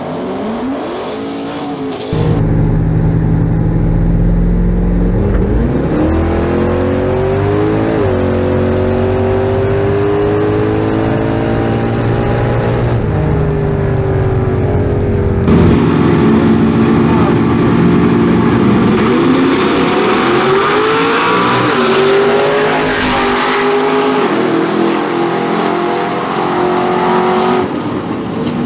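Drag-race car engine running loud and revving, its pitch climbing and dropping several times; it jumps in loudness about two seconds in.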